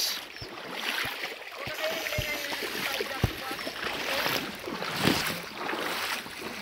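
Shallow river water sloshing and swishing around legs as people wade upstream, swelling with each stride.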